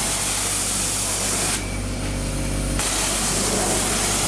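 Pressure-washer wand at a coin-operated car wash spraying clear rinse water onto a car's wheel and up into the wheel well: a steady hiss of the jet hitting the tyre and arch. The hiss turns duller for about a second partway through, over a steady low hum.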